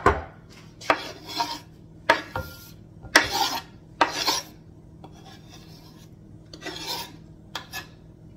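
A spoon scraping chopped parsley off a wooden cutting board into a glass bowl: a sharp knock at the start, then four short scraping strokes about a second apart, with a few fainter scrapes near the end.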